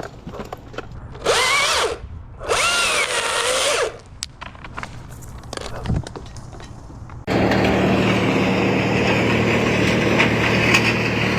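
Chainsaw revved in two short bursts, each rising and falling in pitch. About seven seconds in, a steady machine drone with a low hum starts abruptly and keeps going.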